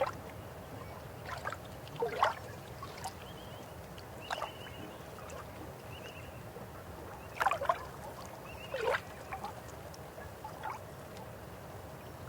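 River water running steadily, with irregular gurgles and splashes breaking through, the loudest about two seconds in and around seven and a half seconds.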